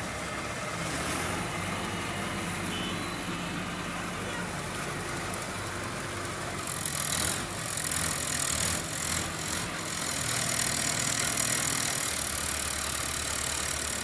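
Diesel engine of an asphalt paver finisher running steadily. Irregular rough, scraping noises come in about halfway through and last a few seconds.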